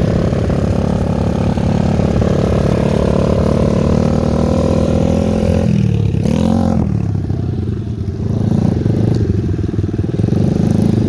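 Small motorcycle engine running steadily. About six seconds in, its pitch dips and then rises briefly as the engine speed changes.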